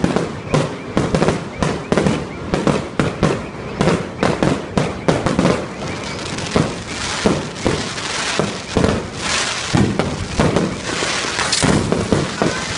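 Fireworks display going off: a rapid string of bangs, several a second. From about halfway through the sound turns into a steadier, denser hiss with fewer separate bangs.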